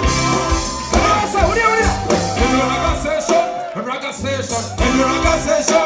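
Live band music over a stage PA: a vocalist sings into a microphone over a steady beat of drums and bass.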